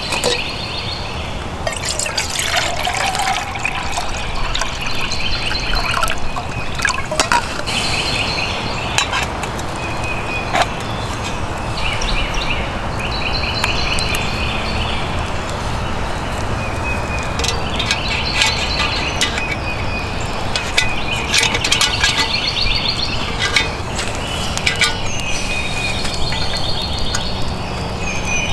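Wood campfire crackling with scattered sharp pops, while a songbird repeats a short trilled phrase every couple of seconds. About two to three seconds in, water is briefly poured into a stainless steel pot for coffee.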